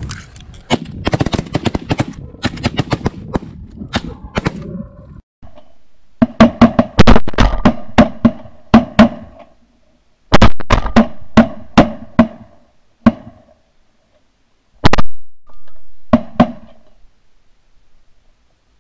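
Volley of 12-gauge shotgun fire at flying sandhill cranes: a dense, rapid string of shots over the first five seconds, then a run of loud single blasts about a second apart, heard close up from gun-mounted cameras.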